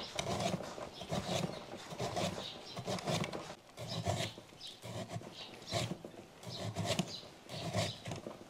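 Hand-lever meat slicer chopping through a block of lamb, its steel blade coming down in short, even strokes about twice a second, each with a crunch and scrape.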